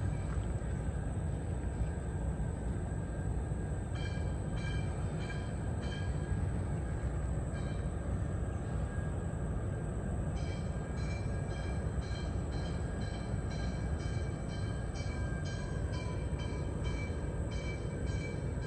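Steady low outdoor rumble, with a high, rhythmic chirping about twice a second. The chirping comes in about four seconds in, stops after a few seconds, and returns about ten seconds in.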